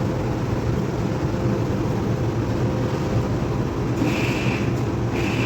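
A steady low rumble of running machinery, with two short high-pitched tones about four and five seconds in.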